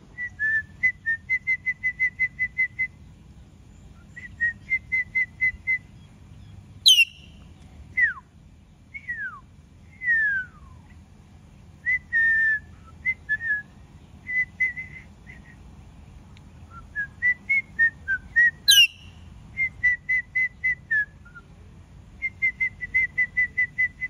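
Alexandrine parakeet whistling: runs of quick, even notes at about five a second, three downward-sliding whistles, and two sharp, shrill calls, about seven seconds in and near nineteen seconds.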